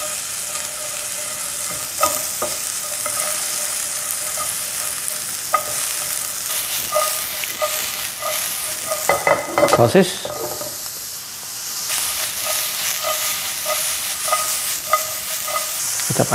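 Sliced onion, garlic and ginger sizzling in hot oil in a nonstick frying pan, with a spatula stirring and scraping against the pan in a steady rhythm of strokes. About nine seconds in there is a louder burst of clatter and sizzling as sliced beef sausage goes into the pan.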